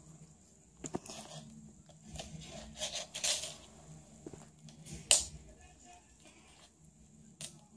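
Cat batting a small furry toy mouse on a hardwood floor: scattered light taps, scrapes and rustles, with one sharp click about five seconds in.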